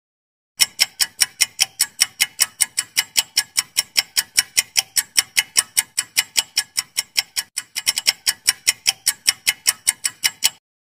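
Clock-ticking sound effect of a quiz countdown timer: rapid, even ticks, about five a second, starting about half a second in and stopping abruptly just before the end.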